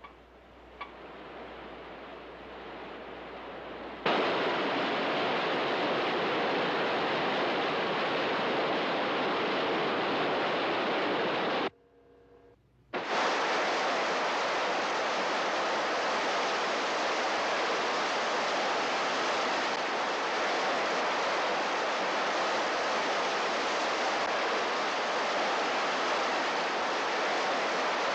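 Loud, steady rushing hiss on a film soundtrack. It starts suddenly a few seconds in, cuts out for about a second and then comes back just as suddenly.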